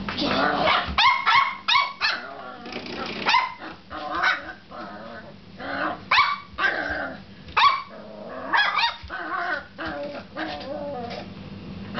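Ruby Cavalier King Charles Spaniel puppy barking and yapping over and over in short, separate barks with brief pauses between them.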